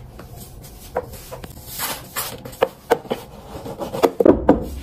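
Broom bristles sweeping sunflower-seed shells across a hard floor into a plastic dustpan: irregular scratchy swishes with light clicks and knocks, busiest near the end.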